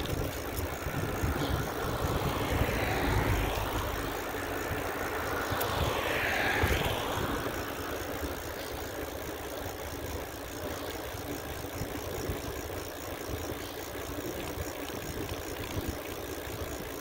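Road traffic: two vehicles pass, the first about three seconds in and a louder one at about six and a half seconds, each a rising-then-fading swish of tyre noise over a steady low rumble.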